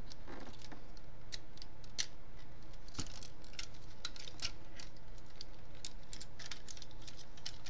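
Irregular small clicks and ticks of the plastic parts of an MP-10 Optimus Prime transforming robot figure being handled and pushed into place by hand, over a faint steady low hum.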